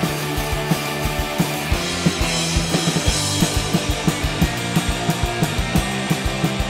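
Outro music with a steady drum beat.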